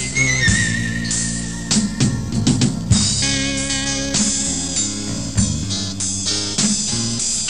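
Instrumental break of a Bengali pop-rock song: band music with guitars and drum kit. A high lead melody note is held through the first couple of seconds, and a drum fill comes about two to three seconds in.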